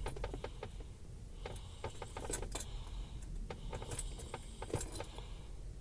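Faint, irregular light clicks and small jingly rattles over a low hum, with no engine cranking or starting: the push-button start is held but the engine does not respond.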